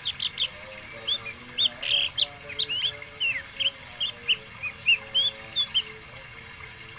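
Pet songbird singing a rapid series of short, sharp chirps and whistled notes, about twenty in all, breaking off about a second before the end.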